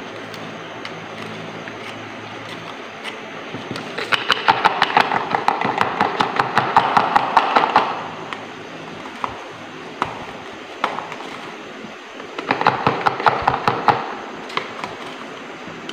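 Quick runs of light clicking and tapping from a small plastic cup as baking soda is tapped out of it into a plastic funnel. There are two bursts of a few seconds each, one about four seconds in and one near the end, with a few single taps between them.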